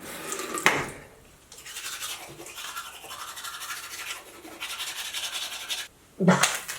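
Toothbrush scrubbing teeth: rapid, scratchy brushing strokes that start about a second and a half in and run for about four seconds, followed by a brief louder sound near the end.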